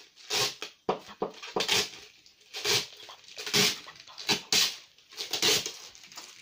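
Plastic keys of an unpowered Casio portable keyboard clacking as children press and mash them: an irregular clatter of short knocks with no notes sounding.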